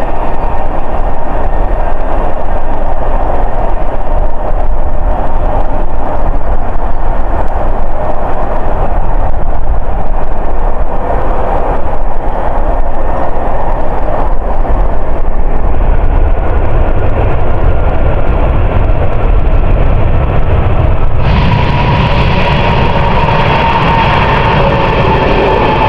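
Four-engine Airbus A380 landing: a loud, steady jet rumble mixed with rushing air. About 21 seconds in, the sound shifts to a thinner, higher engine whine with a steady tone.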